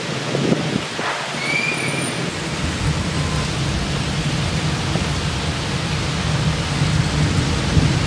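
Rainstorm with heavy rain and gusting wind, the wind buffeting the microphone in a steady low rumble. A single short high chirp sounds about two seconds in.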